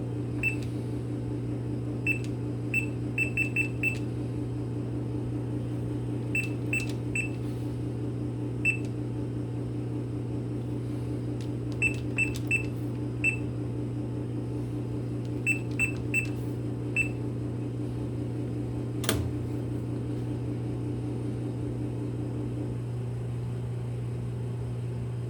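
Short high beeps from an AP vending machine's selection keypad as buttons are pressed in quick groups while prices are keyed into the control board's price-setting mode, over a steady low hum from the machine. A single sharp click comes about 19 seconds in.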